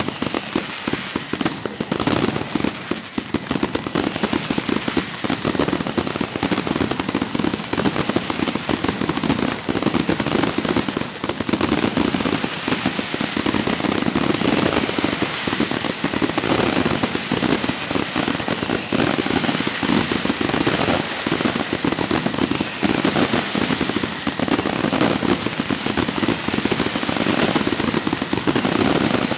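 Fireworks going off in a dense, unbroken barrage of rapid cracks and pops, like strings of firecrackers.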